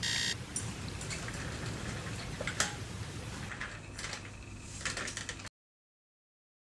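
Quiet handling sounds over a low room hum: a plastic shopping bag rustling on a lab bench and an office chair being shifted, with a few light clicks and knocks. A pulsing electronic beep ends in the first half-second, and the sound cuts to dead silence about a second before the end.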